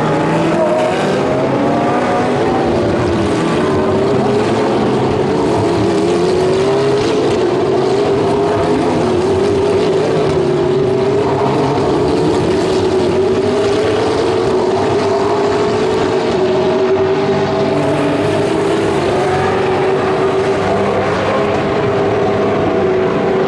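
GT3 race car engines at high revs throughout, their pitch climbing and falling with throttle and gear changes, several engine notes overlapping.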